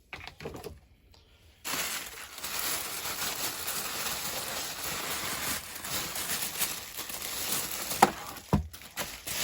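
Packing paper crinkling and rustling as a piece of a toy set is unwrapped, with two sharp knocks near the end.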